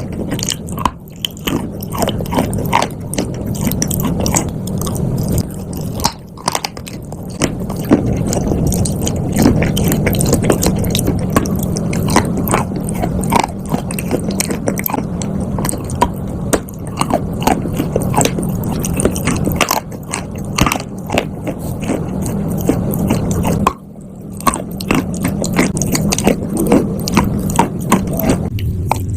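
A person chewing chalk and clay: steady wet chewing with many sharp crunches, broken by two brief pauses.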